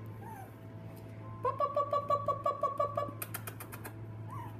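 Young puppies yapping: a quick run of high, same-pitched yips starting about a second and a half in, with a couple of short rising whimpers. A brief burst of sharp clicks follows the yips.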